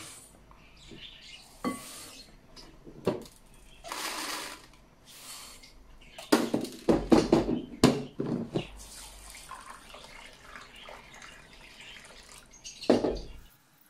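Dry rice is scooped from a plastic storage tub and poured into a glass bowl, with a string of clicks and knocks from the plastic scoop, tub and lid. Near the end, water is poured from a plastic jug onto the rice to soak it.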